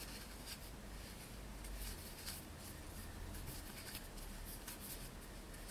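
Faint rustling and soft scratching of cotton yarn being drawn through stitches with a crochet hook, a few brief scratches spread through, over a low steady room hum.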